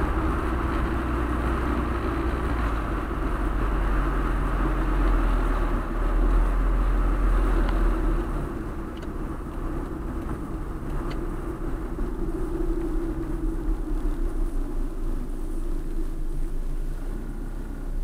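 Steady road and engine noise of a car driving, heard from inside the cabin: a low rumble with tyre hiss. It grows somewhat quieter about halfway through as the car slows toward stopped traffic.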